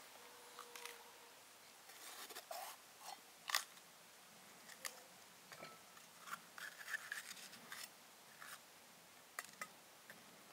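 Scattered small clicks and snips, like handwork with a tool, coming irregularly, with the sharpest one about three and a half seconds in.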